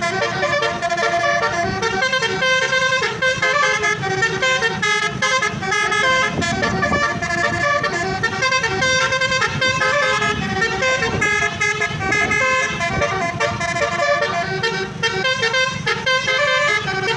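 Multi-tone 'telolet basuri' musical bus horn on a Sanjaya Trans bus playing a continuous melody of quickly changing notes, over a low rumble.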